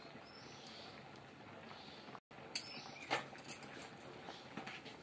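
Faint kitchen sounds at a cooking pot on a gas stove: a low steady hiss, a brief cut to silence about two seconds in, then a few light clicks and knocks of a utensil against the pot.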